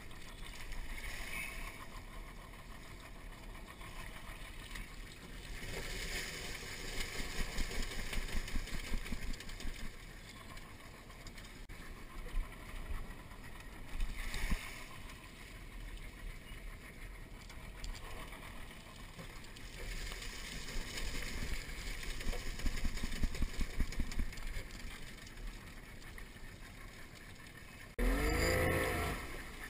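Wire crawfish traps pulled from shallow marsh water and handled over a skiff's side, with splashing and clattering knocks in bunches, over the steady hum of an idling outboard motor. Near the end the motor is revved briefly, its pitch rising and falling.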